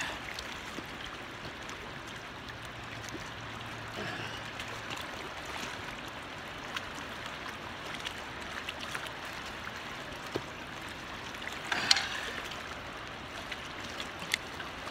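Steady rush of river water, with a few light clicks and knocks over it.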